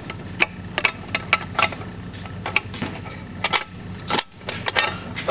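Steel clutch plates clinking against one another and the aluminium transmission case as a new steel is worked into the low-reverse clutch pack of a Chrysler 42RLE: about a dozen irregular light metallic clicks and taps.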